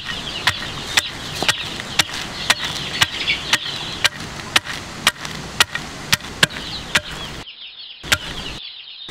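Wooden pestle pounding almonds in a stone mortar, striking steadily about twice a second, with birds chirping behind. The sound drops out in short gaps near the end.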